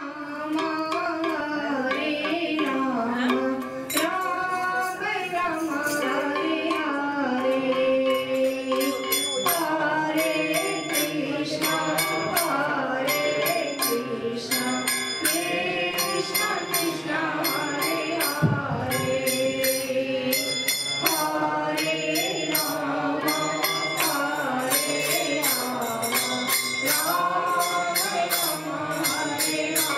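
Hare Krishna kirtan: a harmonium holding sustained chords under singing, with a mridanga drum playing. Sharp rhythmic strokes set in about nine seconds in and keep a steady beat.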